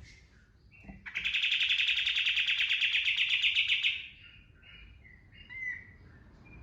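Kapas tembak songbird singing: soft scattered chirps, then about a second in a loud, fast, evenly pulsed trill (its 'tembakan' burst) lasting about three seconds, followed by soft chirps again.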